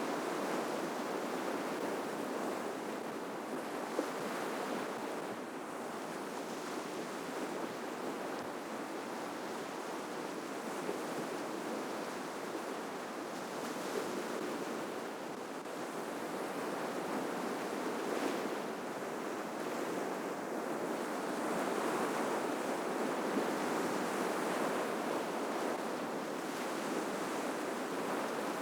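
Ocean surf breaking on the shore, a continuous wash of waves that slowly swells and eases over several seconds at a time.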